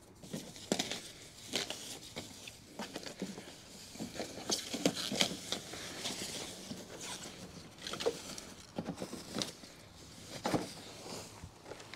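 Thin plastic bag crinkling and rustling as it is pulled off a mini-split air handler, with irregular crackles and a few louder rustles.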